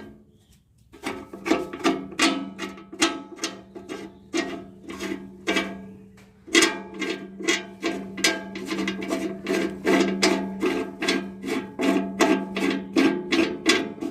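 Music: a run of sharp struck notes, about two to three a second, each ringing briefly, over a steady low hum.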